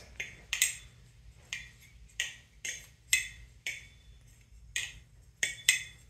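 Teflon-coated Nabalis Vulp balisong being flipped: about a dozen sharp, irregularly spaced clicks as the handles swing around and strike, each followed by a short high metallic ring.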